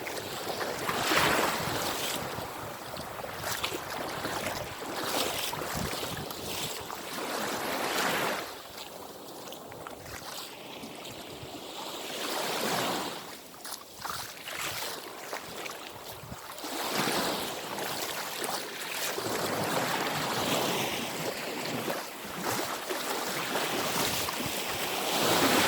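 Small sea waves washing onto the shore, the rush of water swelling and falling back every few seconds.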